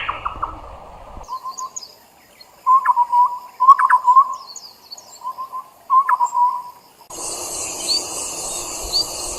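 Wild birds calling, with the recording changing abruptly twice: first a bird giving groups of short, low, hooting notes, then a different bird giving short rising chirps about once a second over a steady background hiss.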